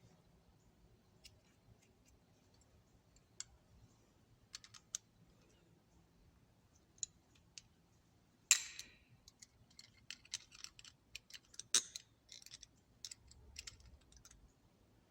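Irregular small metal clicks and taps of a Craftsman thumbwheel ratchet's parts being handled and fitted back into the head, with two louder clacks past the middle.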